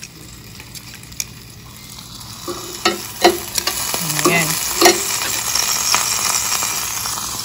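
Pork skewers sizzling in the hot pot of a Ninja Foodi grill, the sizzle swelling about two seconds in. Metal tongs click and scrape against the grill grate a few times between about three and five seconds in as the skewers are lifted out.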